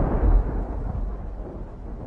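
Thunder rumbling and fading away after a clap, deep and low.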